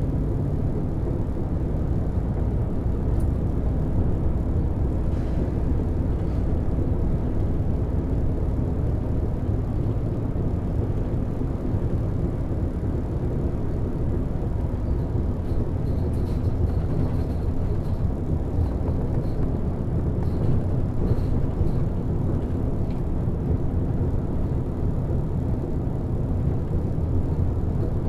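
Volvo B12BLE city bus under way, heard from the driver's side: the 12-litre six-cylinder DH12E diesel engine running with steady low engine and road noise.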